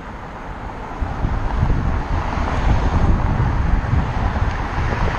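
Wind buffeting the microphone of a GoPro on a moving bicycle: a gusty rumble, a little quieter for about the first second and louder after.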